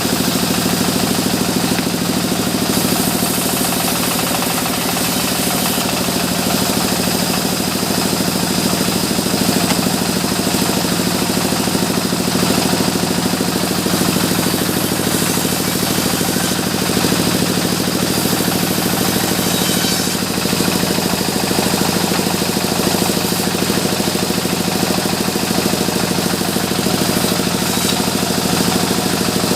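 Sawmill engine running steadily at constant speed, with a fast even pulse and no change in load.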